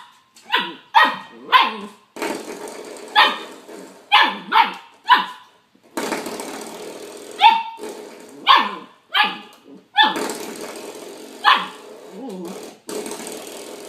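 Small dog barking, about a dozen short, sharp barks in irregular clusters.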